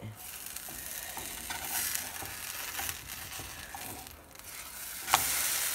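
Thin Swedish pancake sizzling in butter in a nonstick frying pan while a metal slotted spatula scrapes and pushes under its edge. About five seconds in comes a single sharp slap as the pancake is turned over, and the sizzling is louder after it.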